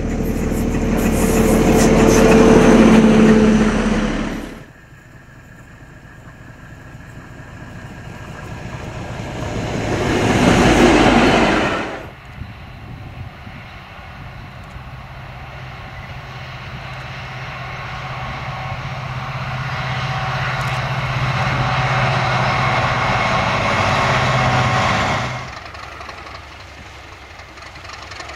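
Diesel locomotives with trains passing at speed in three clips cut together: engine and wheels on the rails rise to a loud pass about 3 seconds in and again about 11 seconds in, then a steady engine drone builds slowly through the second half. Each clip breaks off suddenly.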